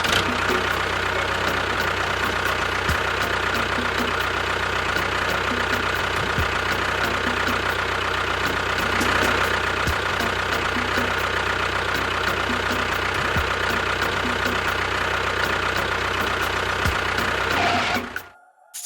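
An engine runs steadily with a constant hum and whine, then cuts off suddenly about 18 seconds in.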